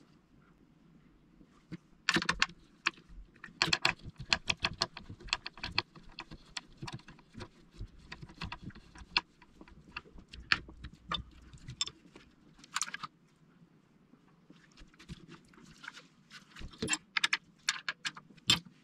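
Clicking, tapping and rattling of hard plastic parts and small hand tools as a plastic gear housing and small motor are fitted together by hand, with a hex key turned in it near the end. The clicks come thick and fast for several seconds, pause, then pick up again.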